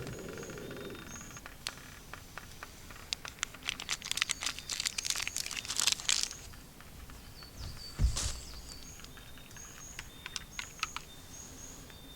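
Short, high bird chirps repeat throughout. A run of crackling clicks comes from about three to six seconds in, and a single thump, the loudest sound, comes about eight seconds in.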